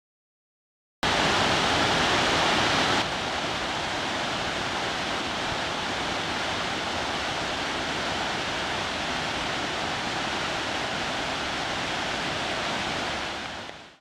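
Steady rushing of Shiraito Falls' many cascades and the rocky river below them. It starts suddenly about a second in, is a little louder for the first two seconds, and fades out near the end.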